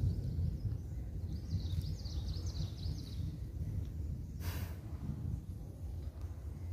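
Outdoor ambience: a steady low rumble, with a bird chirping briefly about two seconds in and a short hiss about halfway through.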